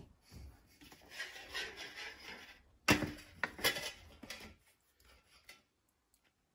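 Pots and a stainless steel basin of water handled on a wooden board. A knock as a terracotta pot is set down, then scraping and rubbing, and a sharper knock about three seconds in, with a few light taps after.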